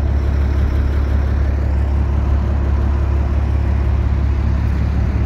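A vehicle engine idling steadily: a constant low hum.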